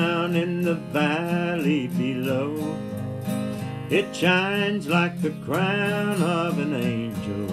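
Background country-style music: acoustic guitar accompaniment under a lead melody that comes in phrases.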